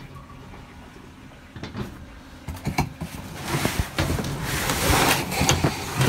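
Cardboard boxes being shifted and dragged by hand in a dumpster. There are a few knocks at first, then louder scraping and rustling in the second half.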